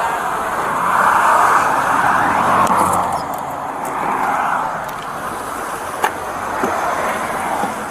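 Car noise heard from inside a vehicle: a steady rushing hum that swells and eases, with a few light clicks.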